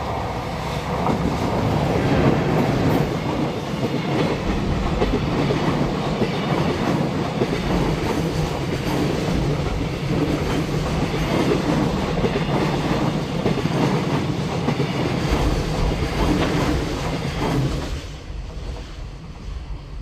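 JR Freight EF210-901 electric locomotive and its train of Koki container wagons passing at speed: a steady loud rush of steel wheels on rail with clickety-clack over the rail joints, dying away near the end as the last wagon goes by.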